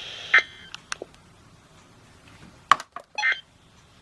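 A weather radio's broadcast audio cuts off with a click. Several sharp clicks and a short electronic beep follow, typical of handling the radio and pressing its buttons.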